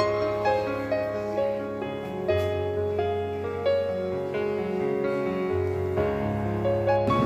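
Background music: a slow melody of held notes over a low bass line that changes a few times.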